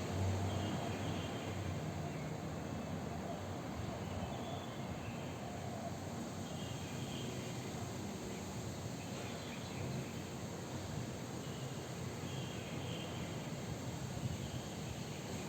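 Insects chirping and birds calling: short chirping trills recur every few seconds over a steady background hiss.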